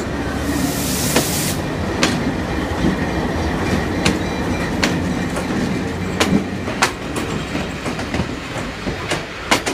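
Passing passenger train: a diesel locomotive's engine running past, then steel coaches rolling by with their wheels clicking over rail joints about once a second, coming quicker near the end. A short burst of hiss about half a second in.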